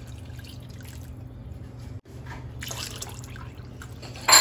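Water poured from a cup into a ceramic bowl of gram-flour and yogurt batter, trickling and splashing faintly. Just before the end comes one sudden, loud knock.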